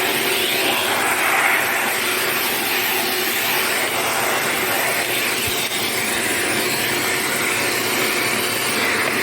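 Shark NZ801UKT upright vacuum cleaner running steadily, its whoosh swelling and easing slightly a few times.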